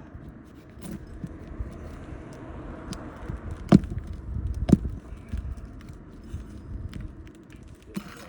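Two sharp metal knocks about a second apart, with a few fainter taps, from a tool working a roofing nail loose under a shingle, over a low steady rumble.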